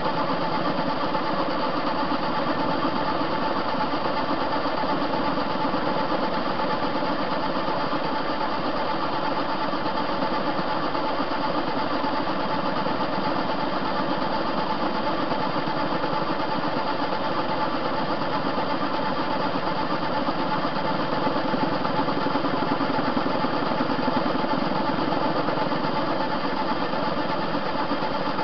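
TV-16 metal lathe running steadily under power feed, its cutting tool taking a continuous cut along a steel bar. Its three-phase motor runs on single phase, with a capacitor used only for starting.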